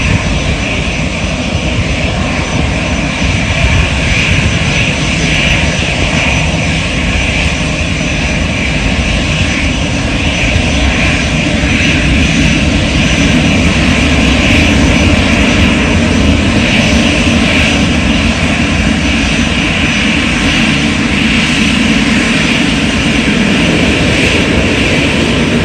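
Jet airliner engines running at high power: a loud, steady noise that swells a little about halfway through and holds.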